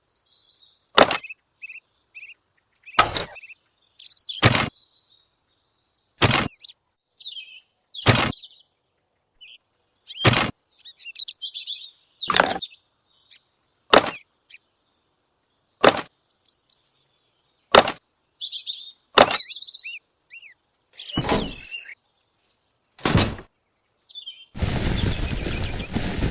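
Small birds chirping, cut through by a sharp knock or tap about every two seconds. Near the end a loud burst of rushing noise starts.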